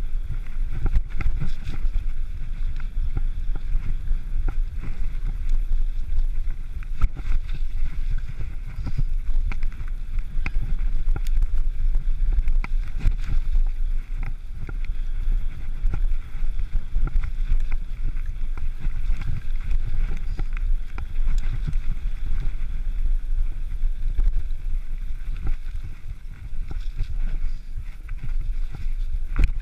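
Mountain bike riding fast down a rough, rocky dirt track: a continuous rumble of wind and rolling noise on the camera's microphone, with frequent small knocks and rattles as the wheels and suspension hit stones and ruts.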